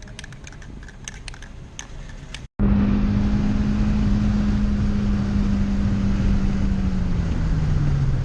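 Rapid light clicks, like typing on a keyboard, then an abrupt cut to a car on the move: steady engine and road noise with a droning hum that drops lower in pitch near the end as the car slows or shifts.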